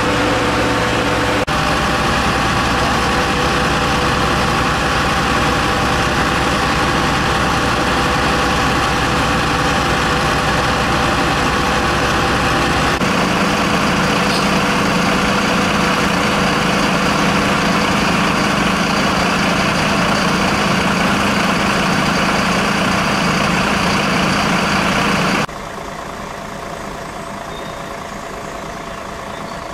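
Fire trucks' engines idling steadily at a fire scene, a continuous mechanical drone with a steady hum; the hum changes about halfway through, and the sound drops to a quieter idle near the end.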